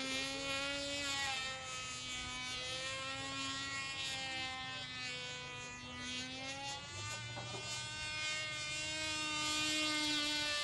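Cox Black Widow .049 glow engine on a small RC model plane in flight, a high buzzing whine whose pitch rises and falls slightly as the plane flies about.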